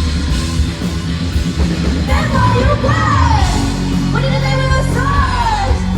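Live rock band playing loudly, with a voice singing long notes that slide down in pitch over steady bass and drums.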